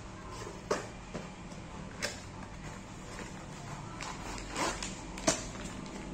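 Packaging being handled on a desk: a cardboard box and ink cartridges in plastic bags, giving a few sharp light knocks and some rustling. A steady low hum runs underneath.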